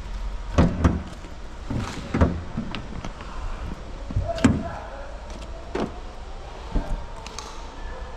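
A series of irregular knocks and clunks around a car, spaced roughly half a second to a second and a half apart, the loudest a little before one second in, about two seconds in and about four and a half seconds in, over a steady low rumble.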